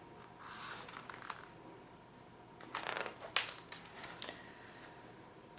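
Page of a hardcover picture book being turned: a soft paper rustle about half a second in, then louder rustling with a sharp click about three seconds in.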